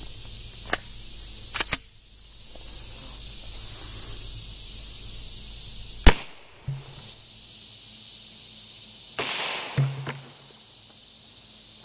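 A single shot from a suppressed Glock 17 in 9mm about six seconds in, a short sharp crack, with a few small clicks before it. A steady high insect buzz runs underneath.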